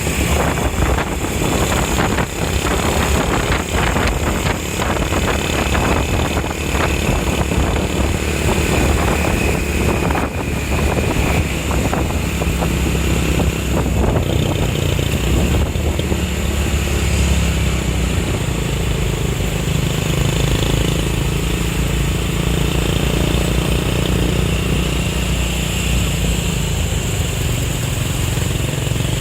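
Road vehicle engine running steadily with traffic noise, with knocks and rustles in the first half and a smoother low engine note after that.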